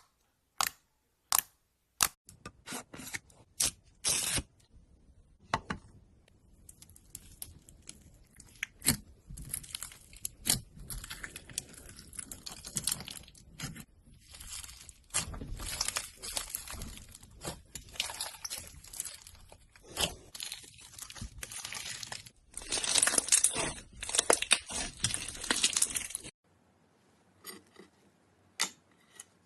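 Slime being worked in ASMR fashion: a few sharp pops and clicks, then a dense crackling of many small clicks. It cuts off suddenly near the end, leaving only a few faint clicks.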